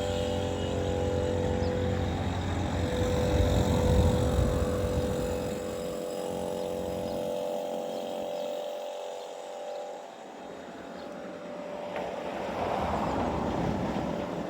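Electric air compressor running steadily as its tank fills, a constant hum that dies away about seven seconds in. Near the end there is a broad rushing noise.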